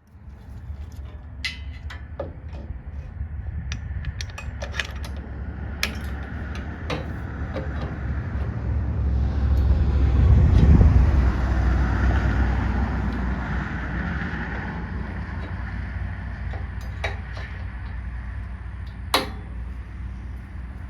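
A low engine rumble that swells to its loudest about halfway through and then fades, with scattered sharp clicks and clinks of metal on top.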